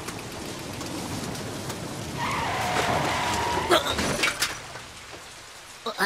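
A car approaching through heavy rain, then a brake screech lasting about a second and a half, followed by a few sharp clattering knocks as a bicycle and its rider crash to the ground.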